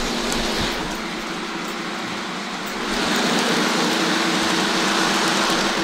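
Lionel Polar Express model train running on its track: a steady hiss and hum of wheels and motor, getting louder about three seconds in.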